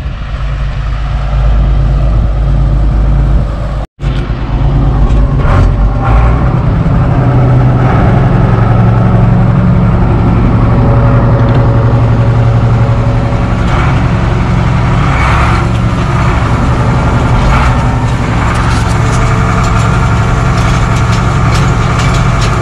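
Case tractor engine running steadily while pulling a spiked field aerator. About four seconds in, the sound briefly cuts out and goes on as a steady engine hum heard from inside the cab.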